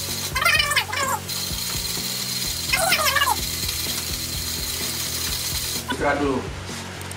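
Hario Skerton hand coffee grinder being cranked, its ceramic burrs crushing coffee beans with a fast ratcheting crackle. The grinding stops about six seconds in.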